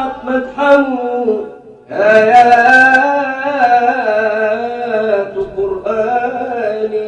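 A man's voice chanting an Arabic devotional song (nasheed) in long, ornamented held notes. The voice dips briefly just before two seconds in, then starts a new drawn-out phrase.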